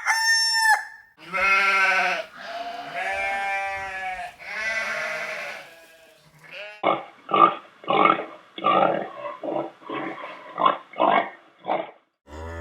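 A rooster's crow ends at the start. Then a sheep bleats three times in long, wavering calls. About 7 seconds in, a pig grunts about a dozen times in quick succession.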